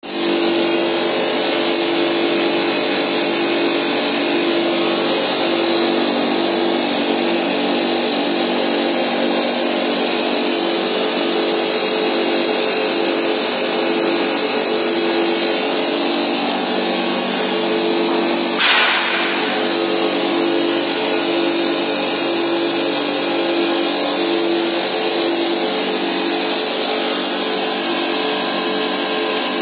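Steel tube mill running: a steady mechanical drone with a high whine, as the drive motors and gearboxes turn the forming rolls and steel strip feeds through to the weld station. One sharp snap about two-thirds of the way through.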